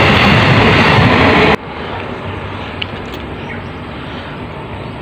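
A KTM electric passenger train passing at close range, a loud steady rushing rumble. It cuts off abruptly about a second and a half in, leaving a much quieter steady outdoor background.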